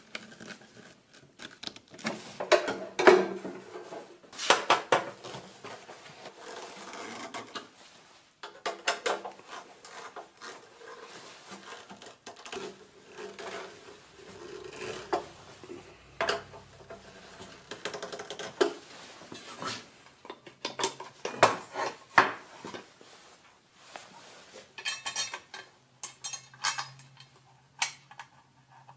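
Steel parts and hand tools of a Bosch RA1181 router table clinking, tapping and rattling irregularly as it is assembled, with a busier run of sharp clinks near the end.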